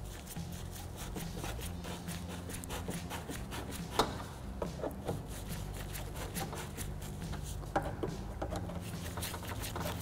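Small metal screws being started by hand into the door handle mount: light, irregular clicking and rubbing, with a sharper click about four seconds in and another near eight seconds.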